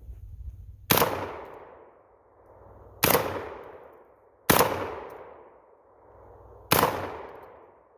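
Four shots from a Panzer Arms AR-12 semi-automatic 12-gauge shotgun, fired at an uneven pace over about six seconds. Each shot rings off in an echo that fades over a second or more.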